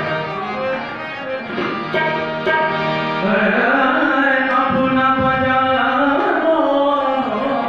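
Live bhajan: a harmonium and tabla, with a man singing in long held notes.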